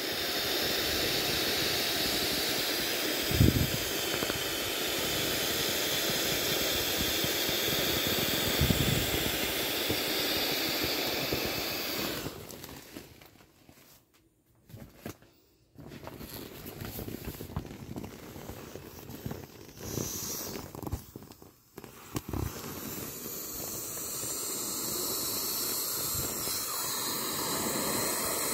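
Air hissing steadily out of the single tail valve of a matte vinyl inflatable as hands squeeze it down, with a couple of dull thumps from handling the vinyl. The hiss dies away for a few seconds about midway, then comes back unevenly as the squeezing resumes.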